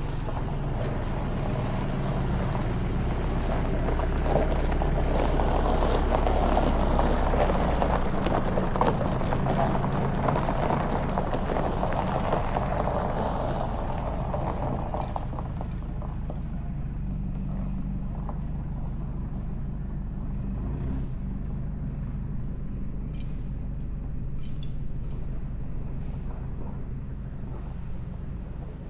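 Car on the move: steady engine hum and road noise, louder in the first half and easing after about fifteen seconds.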